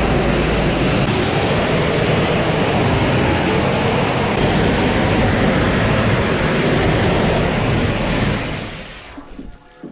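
Gas-engine pressure washer running steadily, then dying away about eight to nine seconds in as it runs out of fuel.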